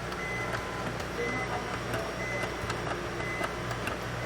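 Electronic beeping from the Electrolux Frost Free refrigerator's door-open alarm: short, high single-tone beeps repeating about every half second to second, sounding because the door is standing open, over a steady low hum, with a few faint clicks.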